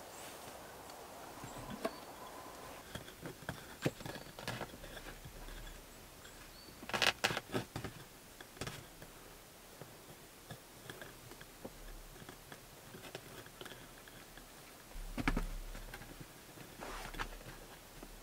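Quiet handling sounds of cord being tied onto a wooden pole: faint rustling and scattered light clicks, with a louder cluster of knocks about a third of the way in and another about two thirds of the way through.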